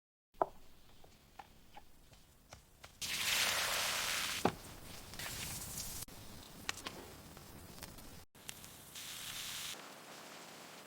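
Cooking and handling sounds: scattered light clicks and knocks, with a loud hissing rush from about three to four and a half seconds in and a shorter, softer one near the end.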